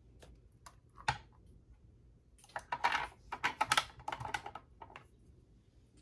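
Small hard objects clicking and clattering as they are moved about and set down on a mirrored glass tray and glass tabletop. A few separate light clicks come in the first second or so, then a quick run of clatter from about two and a half to four and a half seconds in.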